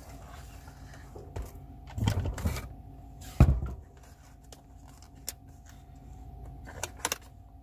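Rustling and knocks from handling a frozen ready-meal's foil tray and card lid, with a sharp knock about three and a half seconds in and a few small clicks near the end. A faint steady hum lies underneath.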